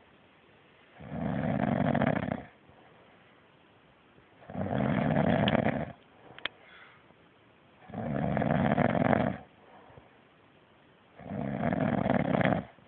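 Heavy snoring: four long snores, each about a second and a half, coming regularly about every three and a half seconds with quiet breaths between. A brief faint click falls between the second and third snores.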